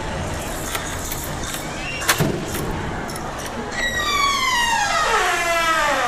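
Fireworks cracking, with one sharp bang about two seconds in. Then, over the last two seconds, a pitched tone with several overtones slides steadily downward.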